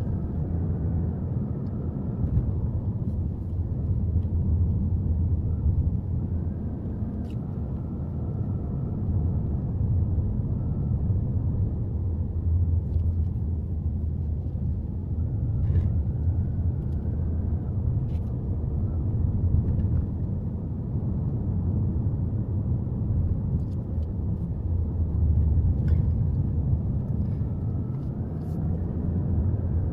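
Subaru Forester driving uphill: a steady low rumble of engine and road noise, with a faint whine that rises and falls as the speed changes.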